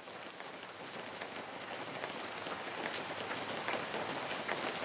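Rain falling steadily: an even hiss with scattered individual drops ticking, fading in and getting gradually louder.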